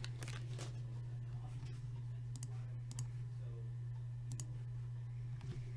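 A few light, sharp clicks and taps at uneven intervals from hands handling a box of hockey card packs, over a steady low electrical hum.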